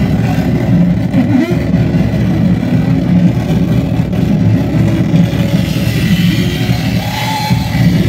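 Harsh noise music played live on electronic gear: a loud, dense wall of distorted noise weighted to the low end, with recurring arching pitch swoops and, in the last couple of seconds, higher wavering tones.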